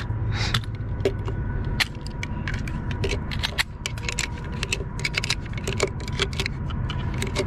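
Quick, irregular metallic clicks and rattles of pistol cartridges and gear being handled on a bench, over a steady low rumble.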